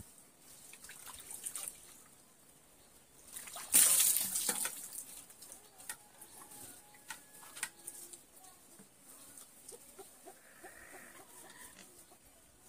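Water scooped from a pot and poured out of a bowl, splashing loudly for about a second roughly four seconds in, followed by small drips and splashes as it is rubbed over the skin.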